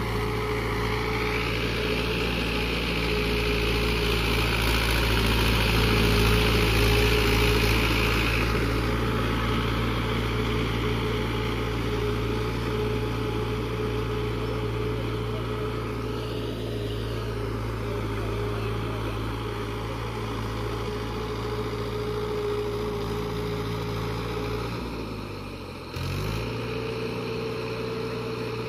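Mahindra tractor's diesel engine running steadily as the tractor drives through a flooded paddy field on steel cage wheels, with a hiss that is loudest over the first several seconds. About 25 seconds in, the engine note sags and wavers briefly, then comes back abruptly.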